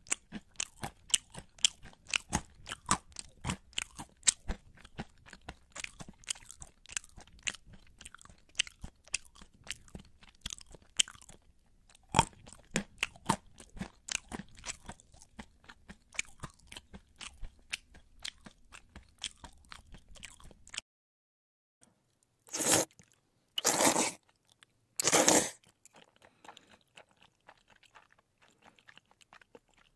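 Close-up crunchy chewing and biting, many sharp crunches a second, which stops about two-thirds of the way in. Three short, loud noisy bursts follow, then faint crunching again.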